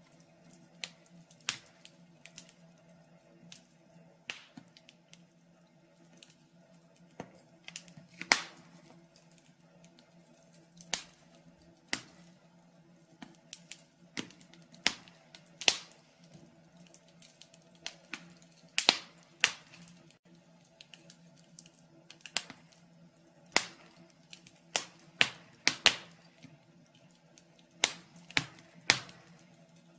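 Wood fire in a fireplace crackling, with sharp irregular pops and snaps, about one or two a second, over a faint steady low hum.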